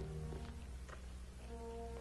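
Dramatic background score: low brass holding sustained chords, moving to a new chord about one and a half seconds in, over a steady low hum.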